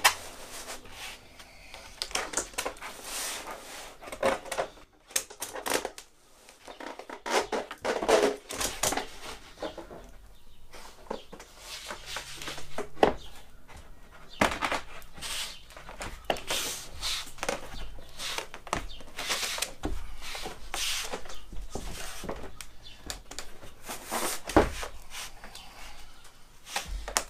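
Thin aluminium sheet being bent by hand over angle iron under a wooden board: irregular rubbing and scuffing of hands and wood, with a few sharper knocks.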